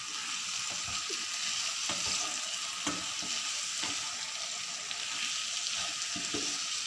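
Beef liver pepper fry sizzling in a nonstick kadai as a wooden spatula stirs it. There is a steady sizzle, with short scrapes and taps of the spatula against the pan about once a second.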